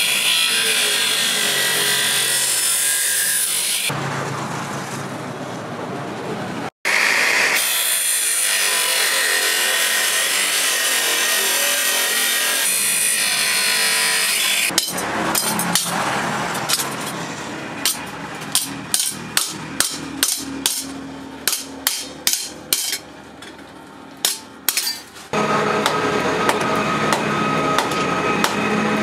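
Makita abrasive cut-off saw grinding through steel plate, a steady harsh cutting noise. About halfway through it gives way to a series of sharp knocks, about two a second, followed by steady noise again near the end.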